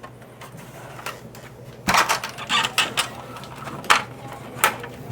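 Old, brittle hard-plastic parts of a 1983 G.I. Joe Skystriker toy jet clicking and scraping as its wings are worked open and the shell is pried apart, with a handful of sharp clicks.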